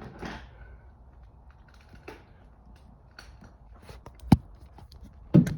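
Scattered small clicks and scrapes of a seat bolt being handled and worked into its hole by hand, with one sharp click about four seconds in.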